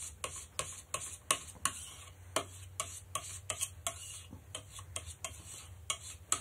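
Steel palette knife working stiff ultramarine oil paint on a slab: short scraping strokes, about three a second, in an even rhythm.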